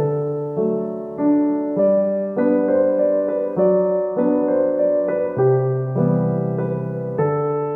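Gentle background piano music, a new note or chord struck about every half second and fading before the next.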